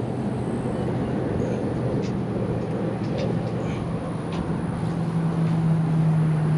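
Steady road traffic noise from a highway, with one vehicle's drone growing louder over the last couple of seconds.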